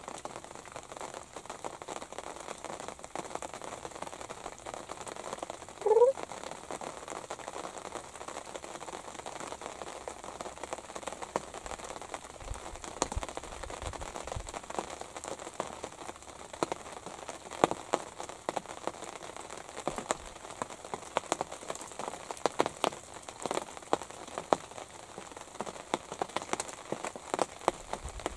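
Light rain pattering on the fabric of a ground blind, a steady hiss dotted with many sharp little ticks that grow busier in the second half. About six seconds in, one brief rising note stands out as the loudest sound.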